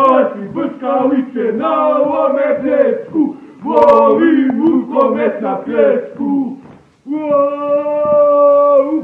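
Men singing loudly together, a wordless chant-like song; after a brief pause near the end they hold one long steady note.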